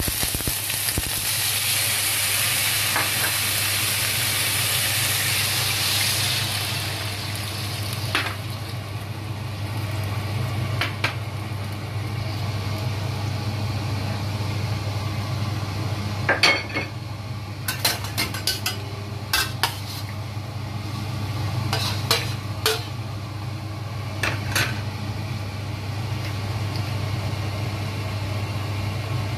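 Tofu strips and ginger sizzling in hot oil in a metal wok. The sizzle dies away after about seven seconds as the sauce goes in. Then come a run of sharp clicks and scrapes of a utensil against the wok, over a steady low hum.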